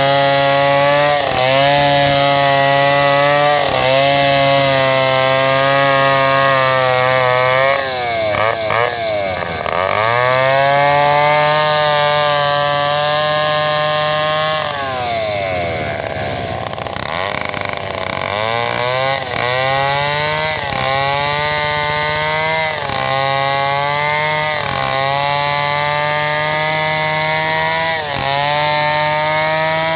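Two-stroke chainsaw running at high revs as it rips a large sengon log lengthwise into planks. The engine pitch sags briefly and recovers every couple of seconds as the chain bites into the wood, with a longer, deeper sag about halfway through.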